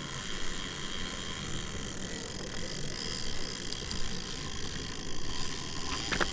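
Fishing reel being cranked to bring in line, a steady gear-and-ratchet whirring.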